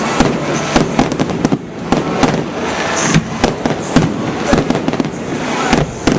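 Aerial fireworks display going off: a fast, irregular string of bangs and crackles over a continuous rumble of echoing reports.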